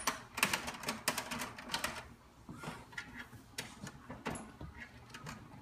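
Plastic keys of a toy cash register clicking as a toddler presses them: a quick run of clicks over the first two seconds, then scattered single presses.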